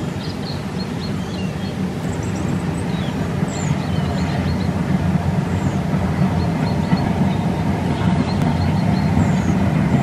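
Distant steam train running along the line: a steady low rumble that slowly grows louder, with short high chirps scattered over it.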